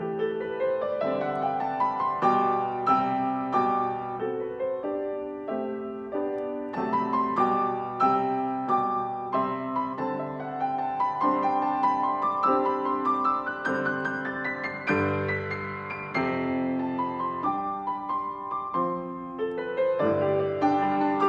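Solo piano playing a gentle carol arrangement, with flowing runs of notes that climb and fall and deep bass notes under them.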